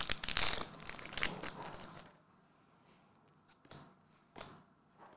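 Plastic trading-card booster-pack wrapper crinkling for about two seconds, then a couple of soft clicks as the cards are handled.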